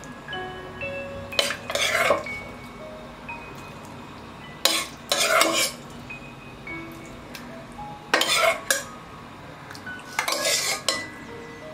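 Metal ladle scraping and clinking as thick curry gravy is scooped up and served into a bowl, in four short bouts about three seconds apart, over soft chime-like background music.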